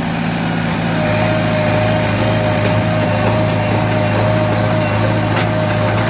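JCB 3DX 49 HP backhoe loader's diesel engine running steadily, with a steady high whine joining about a second in.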